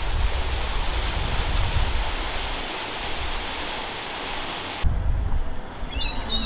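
Water cascading down a large sloped fountain, a steady rushing hiss, with wind buffeting the microphone. It cuts off suddenly about five seconds in, leaving a quieter low rumble and a few short high squeaks near the end.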